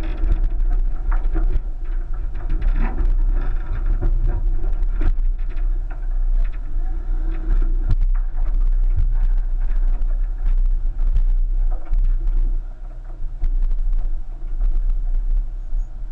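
1999 Subaru Forester crawling slowly over deep ruts and loose stone: a steady low rumble with frequent knocks and crunches from the tyres, stones and body.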